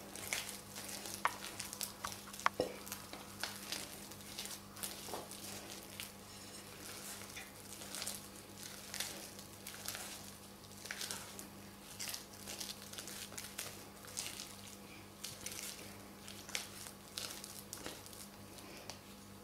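Spatula stirring and scraping a thick, stiffening cold-porcelain paste of glue and cornstarch in a glass bowl: faint, irregular scrapes and small clicks against the glass. A steady low hum runs underneath.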